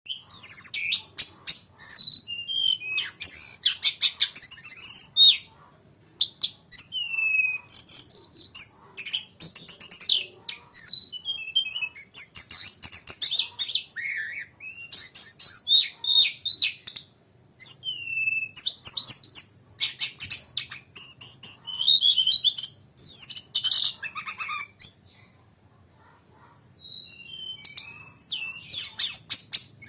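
Tledekan gunung (Sunda robin) singing in long, rapid runs of high-pitched chirps and rolling trills, broken by a few short pauses.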